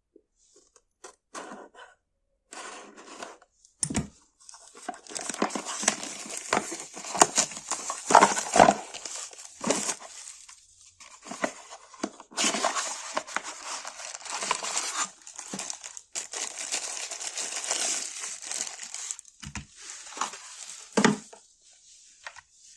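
Packaging being opened by hand, crinkling, rustling and tearing, with a few soft knocks.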